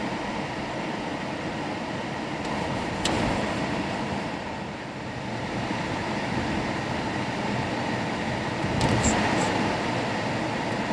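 Steady hum and hiss of a car's interior, vehicle and air-conditioning noise heard inside the cabin. A few light clicks come about three seconds in and again near nine seconds.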